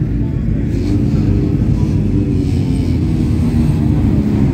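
Engines of autocross buggies running as the race cars drive past one after another, a steady low engine note that rises and falls a little.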